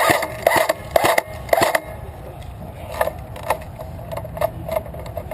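Footsteps crunching through dry leaves and twigs. Half a dozen loud steps come in the first two seconds, then softer steps follow.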